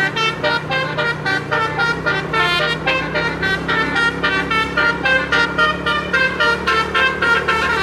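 Multi-note 'telolet' bus air horn, a 12-note basuri set, playing a fast tune of short notes at about four a second, over a steady low hum.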